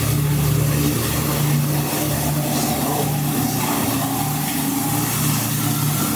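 Steady rush of falling water from a boat-ride waterfall, with a low, steady hum underneath.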